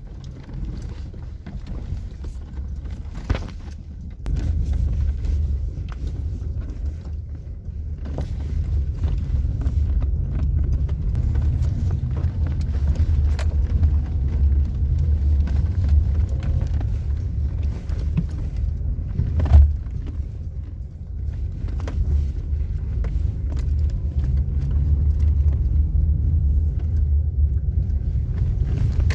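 Low, steady engine rumble that grows louder about four seconds in, with a few sharp knocks about three, eight and nineteen seconds in.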